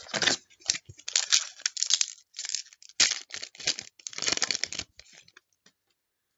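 A foil trading-card pack being torn open and its wrapper crinkled, in uneven bursts of tearing and rustling that die away about five seconds in.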